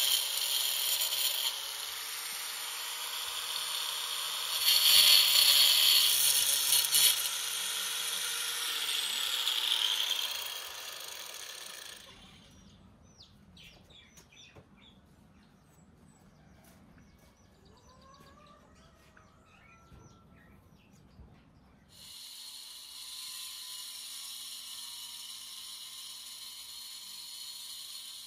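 Electric angle grinder running against raw meat, a loud high whine whose lower tone sags and recovers as the disc is pressed in, stopping about twelve seconds in. Birds then chirp faintly over quiet, and a steady hiss comes in near the end.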